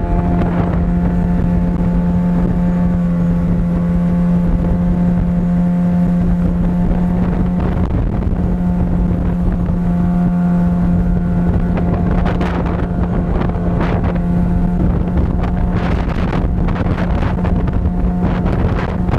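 15 hp outboard motor running at a steady speed under way, its pitch holding constant, with wind buffeting the microphone and a few sharp knocks in the second half.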